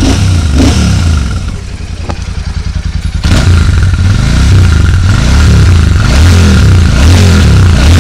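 Royal Enfield Super Meteor 650's parallel-twin engine through its stock exhaust, running and being revved in repeated throttle blips. The sound gets louder from about three seconds in.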